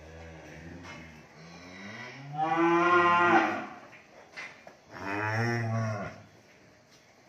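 Cattle mooing: a long low moo that swells into a loud call about two seconds in, then a second moo about five seconds in.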